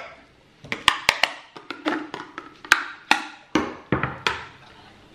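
A run of sharp clicks and light tinny knocks, some briefly ringing, from a tin of chopped tomatoes being handled and its lid opened.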